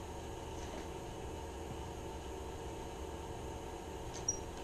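Steady background hum and hiss, with one faint short click near the end.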